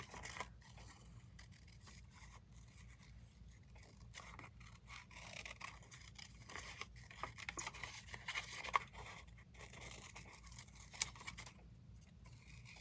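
Scissors snipping paper in short, irregular cuts: fussy cutting close around a printed picture.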